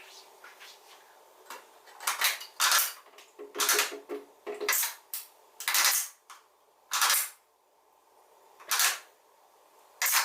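A series of about nine sharp clacks and short scrapes of hard objects being handled, spaced irregularly, with a brief buzzing tone about four seconds in.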